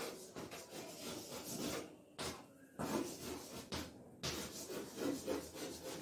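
Chalk scratching on a blackboard as words are written by hand: an irregular run of short scraping strokes, with brief pauses between words.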